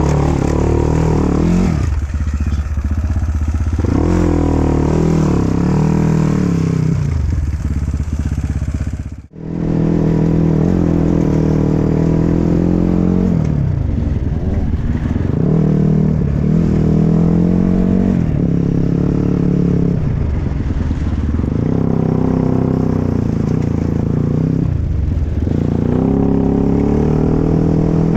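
Off-road dirt bike engine revving up and dropping back again and again as the rider opens and closes the throttle. The sound cuts out for a moment about nine seconds in.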